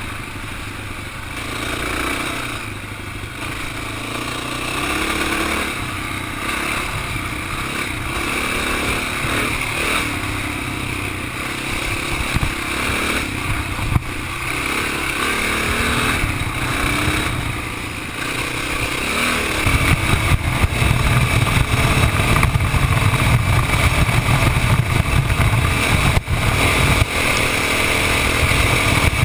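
Single-cylinder four-stroke dirt bike engine running under shifting throttle along a trail. About two-thirds of the way in it gets louder, with much more low rumble as the bike speeds up, and there is one sharp click near the middle.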